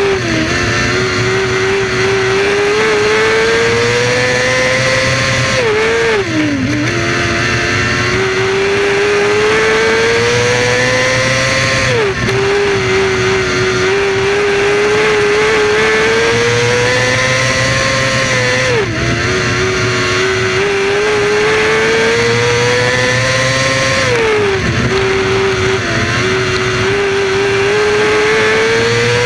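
Winged dirt-track sprint car's V8 engine heard on board at racing speed, under wind noise. Its pitch climbs steadily down each straight and drops sharply as the throttle is lifted for each turn, about every six seconds.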